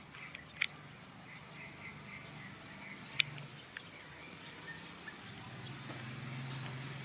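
Outdoor ambience: a steady high-pitched insect drone with scattered faint bird chirps, and a low hum that swells near the end. Two sharp clicks stand out, about half a second in and about three seconds in.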